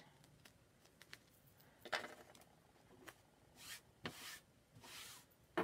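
Hands rubbing and smoothing a sticky silkscreen transfer flat onto an enamel metal sign: a few soft, short brushing strokes.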